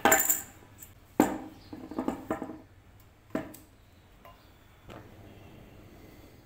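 A handful of short, sharp knocks or clicks at uneven intervals, the loudest right at the start and about a second in, then fainter ones.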